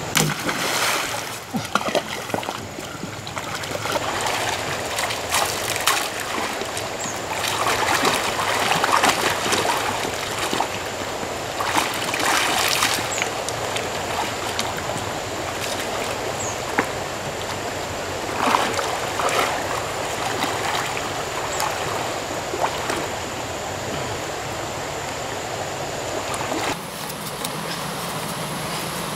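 Flowing water with splashing and sloshing as someone wades in shallow pond water and moves a pump's suction hose about, with a few knocks. A thin steady high-pitched tone runs underneath and stops near the end.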